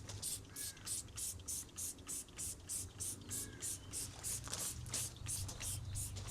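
Rhythmic high-pitched hissing pulses, about four a second, evenly spaced, over a steady low hum, with a few short chirps.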